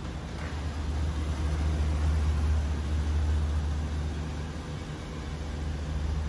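A 6.0L gas V8 in a 2015 Chevy Silverado 3500 idling steadily, a low even hum.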